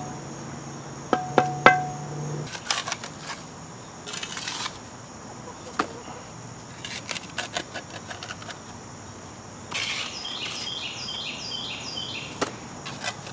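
Wooden trowel handle tapping a brick down into its mortar bed: three sharp knocks with a short ringing note in the first two seconds, against a steady high drone of insects. Scattered small clicks follow, and near the end comes a quick run of high chirping notes.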